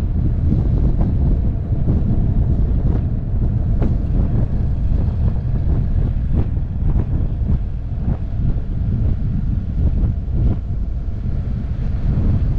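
Wind rumbling on a motorcycle camera's microphone while riding, with the motorcycle's running noise underneath and scattered short knocks from the bike and camera jolting over the road.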